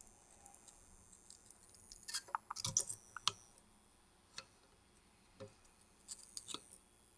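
Soldering at a 1/4-inch jack's ground tab: faint scattered ticks and crackles from the iron tip, solder and metal tab, with a cluster of them about two to three seconds in and a few single ticks after.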